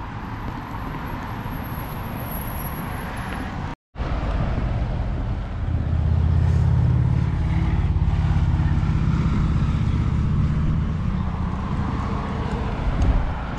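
Road traffic passing close by: vehicles driving past with engine and tyre noise that grows louder and fades. The sound drops out for a moment about four seconds in.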